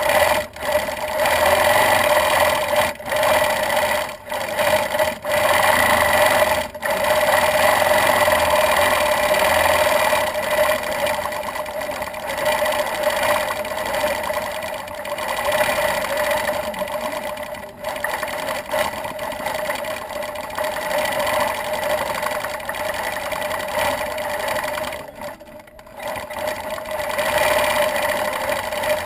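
Gammill longarm quilting machine stitching steadily as it is guided by hand, stopping briefly several times in the first few seconds and again for about a second near the end.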